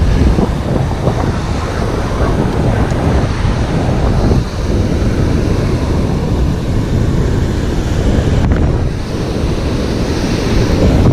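Wind buffeting the microphone over the steady wash of surf breaking on a sandy beach.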